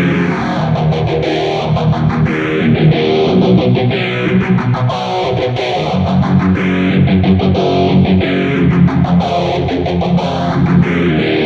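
Electric guitar played through a NUX Cerberus multi-effects pedal with its phaser on, set to a slow rate. The phaser sweep rises and falls about every four seconds through the chords.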